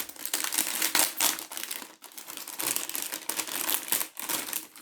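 A collectible's sealed packet being crinkled and torn open by hand, in two spells of dense crackling with a short break about two seconds in.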